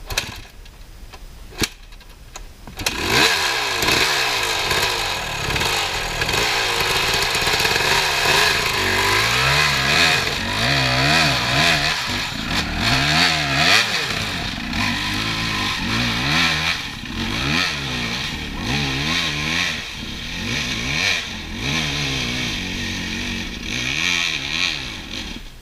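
Dirt bike engine starting up about three seconds in, then revved hard over and over, its pitch rising and falling with each blip of the throttle, as the bike is worked up a steep rocky climb. Two sharp clicks come before the engine starts.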